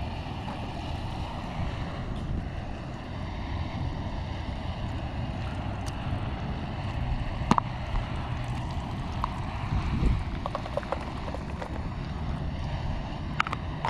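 Steady rushing of an MSR Pocket Rocket canister stove burning under a small camp pot as butter melts and sizzles. There are a few light clicks and taps, the clearest about halfway through and near the end as diced onion goes into the pot.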